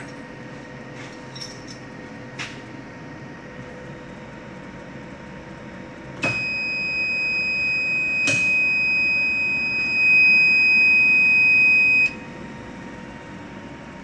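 Control-panel alarm buzzer sounding one steady, loud, high-pitched tone for about six seconds. It starts with a click about six seconds in, gets louder near the end and cuts off suddenly. A second click comes partway through. A faint steady electrical hum lies underneath.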